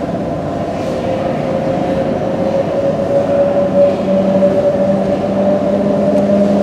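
London Underground battery locomotives approaching through the tube tunnel: a rumble with a steady whine, both growing slowly louder, the whine rising slightly in pitch, and a lower tone joining about four seconds in.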